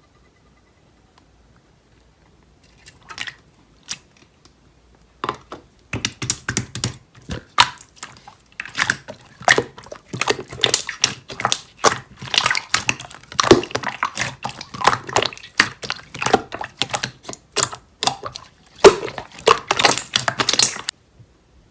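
Rapid, irregular clicking and tapping. A few separate clicks come first, then a dense run starts a few seconds in and stops shortly before the end.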